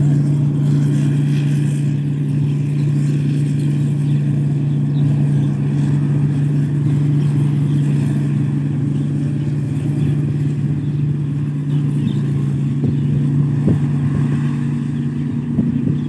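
Rice combine harvester's engine running steadily under working load, a loud, even, deep hum.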